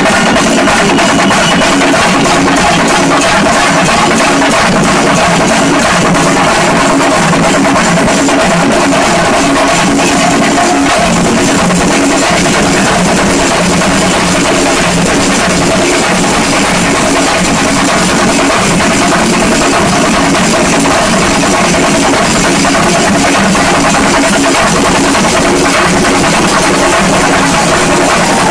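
A shinkarimelam ensemble of chendas, Kerala cylindrical drums, beaten with sticks in a fast, dense, unbroken rhythm, loud throughout.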